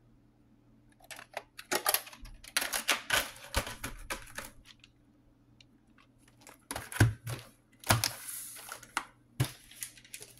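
A VHS cassette and its case being handled and set back on a pile of tapes: a string of plastic clicks, taps and scrapes in two spells, the first starting about a second in and the second from about seven seconds.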